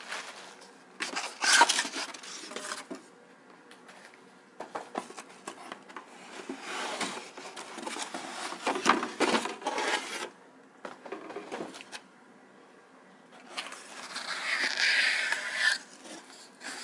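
A white cardboard box being handled: its lid flaps lifted and folded back, with scraping, rubbing and rustling of cardboard and packaging in three uneven bouts, about a second in, in the middle, and near the end.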